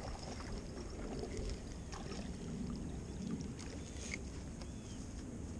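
Low, steady rumble of wind and clothing rubbing on a chest-worn camera's microphone while an angler handles rod and line at the water's edge, with a few faint clicks. A couple of short high chirps come about four to five seconds in.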